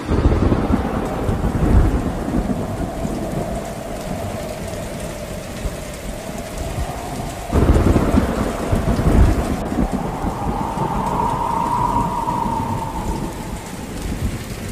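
Heavy rain pouring down with thunder rumbling, and a sudden louder swell of thunder about halfway through.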